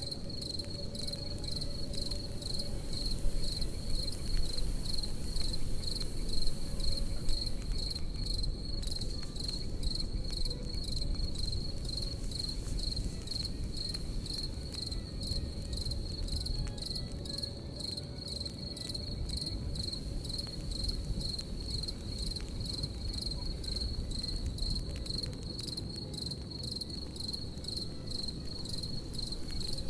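Crickets chirping in a steady, even rhythm, over the crackle and low rumble of a campfire.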